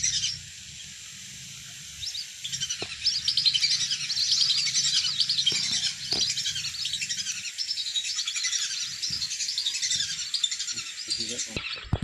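A flock of whistling ducks (belibis) calling in flight: a dense chorus of many overlapping high whistles that starts about two seconds in and fades near the end.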